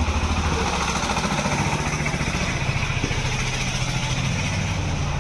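An engine running steadily with a fast, even chugging.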